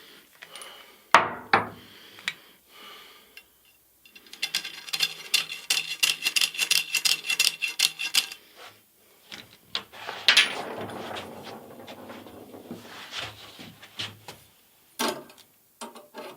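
Conduit being cut with a hand saw: rapid, even back-and-forth scraping strokes for about four seconds, with knocks and clatter from the pipe being handled before and after.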